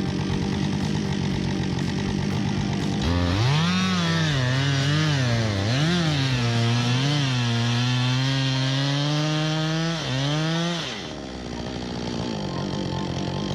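Chainsaw running at a steady lower pitch, then opened up about three seconds in and cutting wood, its pitch dipping and recovering several times as the chain loads in the cut before holding high. After about eleven seconds it drops back to a lower note.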